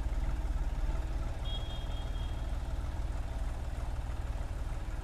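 John Deere tractor's diesel engine running steadily as it pulls a potato planter through the field, a continuous low rumble.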